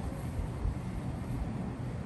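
Iyotetsu 5000 series low-floor tram rolling slowly along the station track, a steady low rumble.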